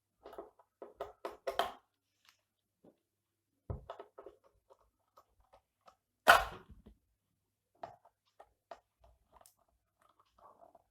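A dog barking: a quick run of short barks in the first two seconds, then one loud bark about six seconds in, with faint clicks and knocks in between.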